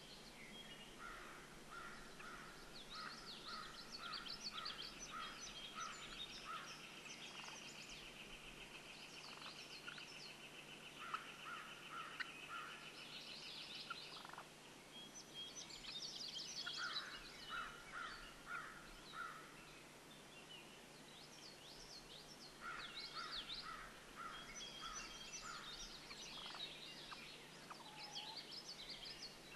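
Faint birds calling: several runs of short, evenly spaced notes and scattered chirps, with a long, fast trill from about three to fourteen seconds in.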